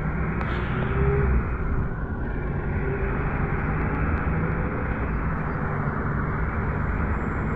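Running noise of a GAZelle Next minibus heard from inside the passenger cabin as it drives: a steady low engine hum over road and tyre noise.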